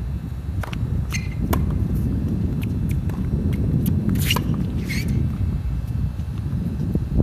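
Wind buffeting the microphone throughout, over the sounds of a tennis rally on a hard court: a serve, ball bounces and racket strikes as sharp clicks. The loudest is a forehand hit from the near baseline about four seconds in.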